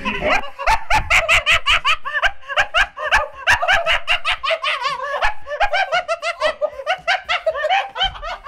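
Men laughing hard, in rapid repeated bursts of laughter.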